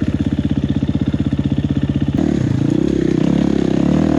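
Single-cylinder enduro dirt bike engine idling with an even putt, then about two seconds in the throttle opens and it runs on at higher revs.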